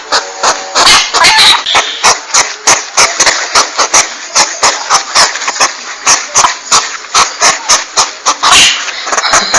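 Porcupine calls: a rapid, uneven run of sharp clicks and short squealing chatter, a few clicks each second, with a brief pitched squeal under a second in.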